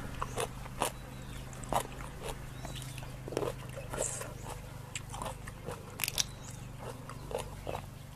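Close-miked crunching and chewing of raw rice-field crab and green papaya salad: irregular sharp crunches and crackles as crab shell is bitten and broken apart.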